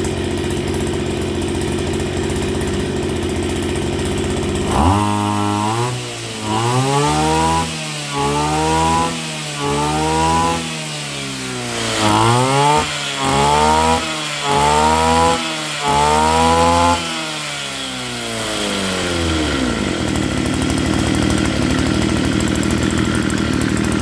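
Echo Kioritz EM253 brushcutter's two-stroke engine idling, then revved up and let back down about eight times in quick succession before settling back to idle near the end. It runs very smoothly.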